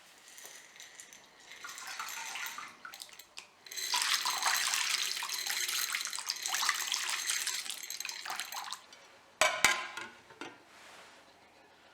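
Water running from a tap into a sink, stronger for about five seconds in the middle, then two sharp knocks shortly after it stops.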